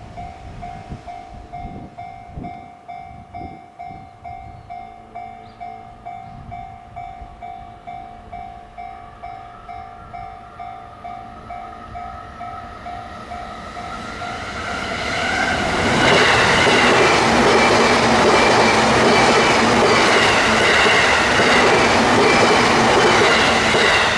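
Japanese level-crossing warning bell ringing at about two strokes a second, with a faint rising whine as a train approaches. From about fifteen seconds in the train passes loudly over the crossing, its rumble and wheel clatter drowning out the bell.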